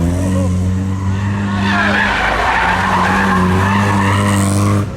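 A classic rally car's engine running under load, its pitch dipping and rising again, with tyres squealing. The sound breaks off abruptly near the end.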